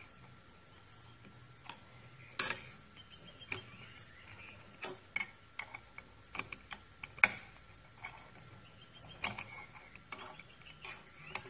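Irregular light metallic clicks and scrapes of a thin wire pick working around the steel C-clip groove inside an RE4R01A automatic transmission's reverse clutch drum, checking the channel before the C-clip goes in. The loudest click comes a little past halfway.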